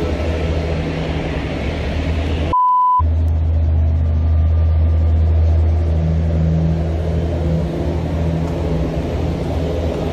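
A loud, steady low rumble with hiss runs throughout. About two and a half seconds in, it cuts out for a short single-pitched beep, an edit marker at the cut to the replay, and then comes back.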